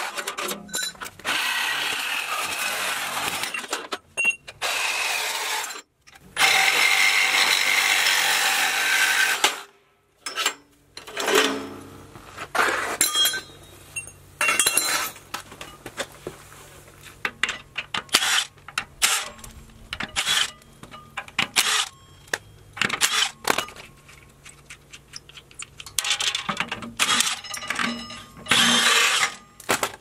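Cordless drill with a socket running in three long bursts, backing out the bolts on the heat exchanger plate of an indirect water heater tank. After that, many short metallic knocks and clinks as the loosened parts and tools are handled.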